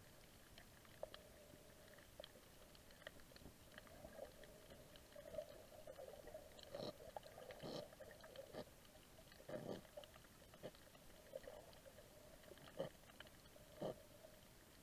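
Faint underwater sound of a bullethead parrotfish biting and scraping coral: scattered short crunching clicks, coming roughly once a second in the second half, over a steady faint hum.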